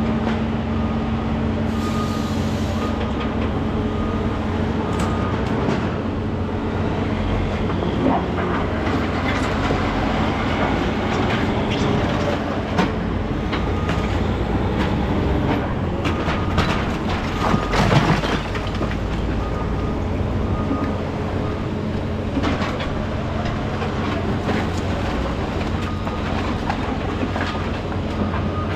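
Heavy diesel demolition equipment running steadily, with scattered metallic clanks and scraping of steel against broken concrete; the loudest clank comes about two thirds of the way through.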